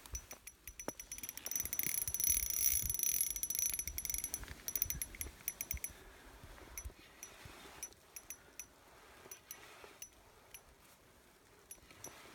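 Small spinning reel clicking rapidly for a few seconds, then in scattered single clicks, its drag giving line to a large lake trout on the other end.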